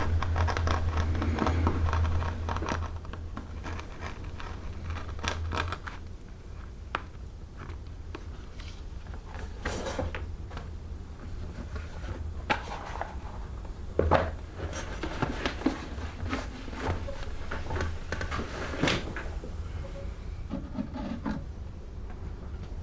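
Leather and hand tools being handled on a workbench: dense scraping and rustling over a low hum for the first few seconds, then scattered clicks and knocks of tools being picked up and set down.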